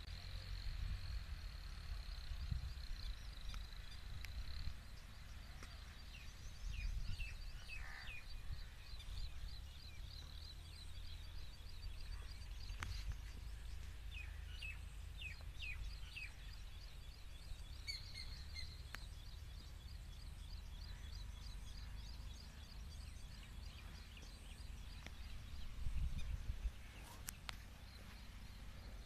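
Rural outdoor ambience: birds chirping in short, quick, downward-sweeping notes, in two clusters, over a steady high-pitched buzz. Underneath is a low rumble that swells briefly near the end.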